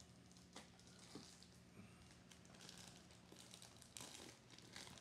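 Near silence: a faint steady low hum with a few soft, brief clicks.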